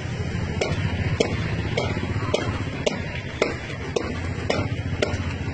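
A steady rhythm of sharp claps or clicks, about two a second and evenly spaced, over a low steady rumble.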